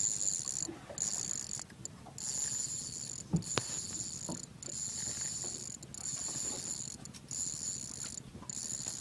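A fishing reel being wound steadily, its gears whirring, as a hooked fish is reeled in on a bent rod. One sharp click comes about three and a half seconds in.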